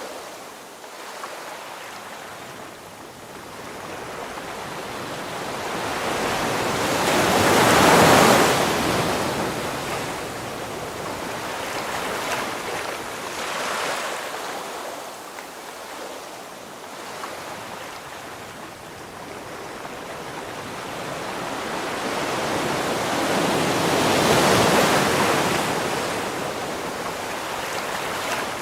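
Ocean waves breaking on a shore: the wash swells and ebbs, with two big waves about 8 and 25 seconds in and smaller surges between them.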